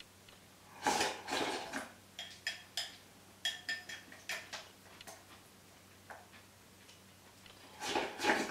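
Eating from a ceramic bowl with chopsticks: a string of light clicks of the chopsticks against the bowl. There is a longer noisy slurp about a second in, and another near the end as the bowl is tipped to the mouth.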